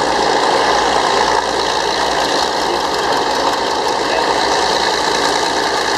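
Diesel engine of a Northwest Model 6 cable shovel running steadily under load as it hoists a full dipper out of the dirt bank and starts to swing.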